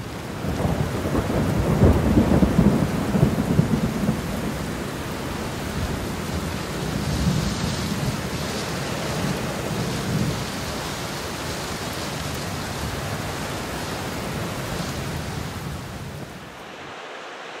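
Thunderstorm with steady heavy rain and rolling thunder, the thunder loudest about two to four seconds in; the rain fades away near the end.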